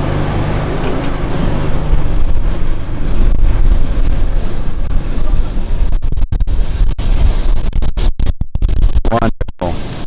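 Electric tram running, a loud low rumble with a fading motor hum early on. In the second half the sound keeps cutting out in short dropouts, with scratchy rubbing on the microphone.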